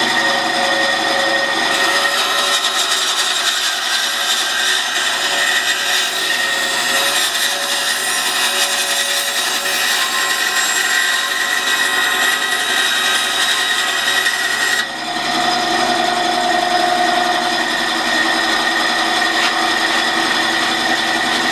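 Small benchtop bandsaw running and cutting a thin piece of wood. The machine tone shifts about fifteen seconds in.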